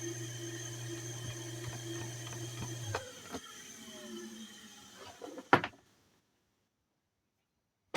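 Kawamoto N3-156SH well pump's electric motor running with a steady hum and whine, the running noise the seller calls abnormal. About three seconds in it is switched off and winds down in a falling whine with a few clicks, and a sharp knock comes about five and a half seconds in.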